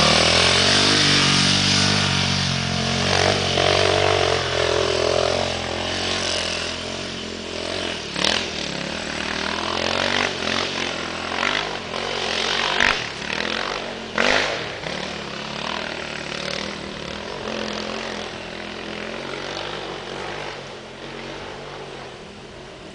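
Off-road dirt bike engine running and revving as the bike rides off through the woods, loud at first and fading steadily into the distance. A few sharp cracks stand out around the middle.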